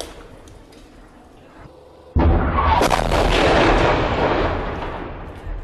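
A single loud artillery boom about two seconds in, with a long rolling rumble that fades away over the next three seconds.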